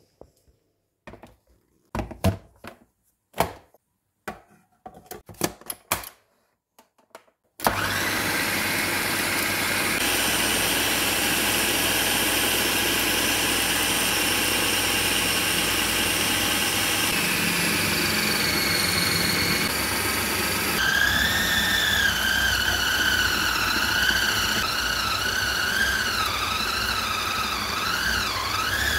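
A few clicks and knocks, then about seven and a half seconds in a Bosch food processor's motor starts abruptly and runs steadily, kneading pizza dough. Its whine shifts in pitch a few times and wavers up and down in the last third.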